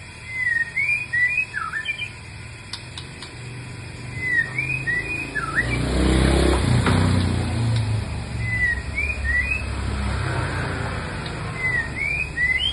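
White-rumped shama whistling short phrases of slurred notes, four phrases about four seconds apart. A vehicle passes in the middle, its low rumble the loudest sound for a few seconds.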